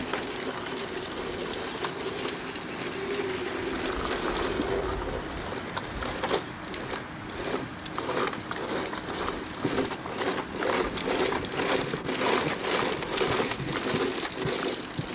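Hard plastic wheels of a child's ride-on toy truck rolling over a concrete driveway: a steady rumble that turns into an irregular rattling clatter about six seconds in.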